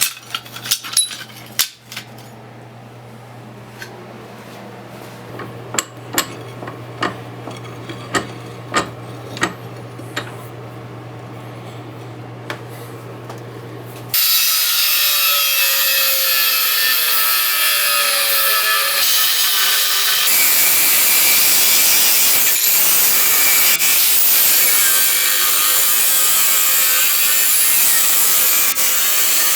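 Several sharp metallic clinks and knocks over a steady low hum as steel bar stock is handled. About halfway through, a loud, continuous power tool starts working steel and runs on to the end.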